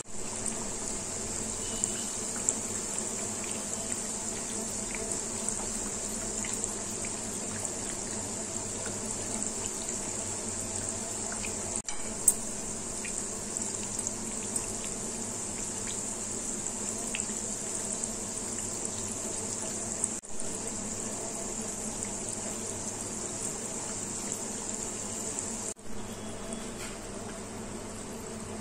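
Sweet wheat-flour mathri deep-frying in hot oil: a steady bubbling sizzle with faint scattered crackles. It breaks off for an instant three times, and there is one sharp click about twelve seconds in.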